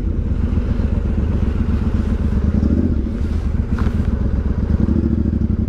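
Motorcycle engine running with a steady low note that shifts slightly in pitch, heard close up from the bike.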